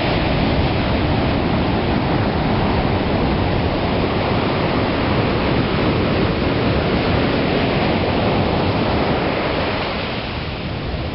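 Ocean surf breaking and washing up a sandy beach, a continuous rush of water that eases slightly near the end.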